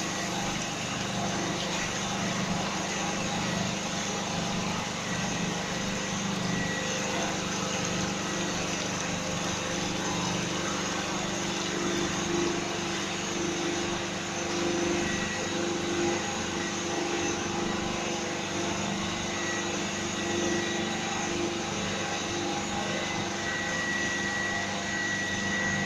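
A PVC pipe-making machine for 5/8-inch pipe running steadily, a continuous even mechanical hum with a few constant tones and a faint high whine that gets clearer near the end.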